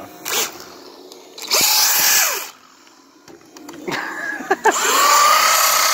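Brushless 2430-size 8200kv motor of an RC buggy on a 3S LiPo, revved in short bursts with a whine that rises and falls. Near the end it spins up and holds a steady high whine as the wheels spin.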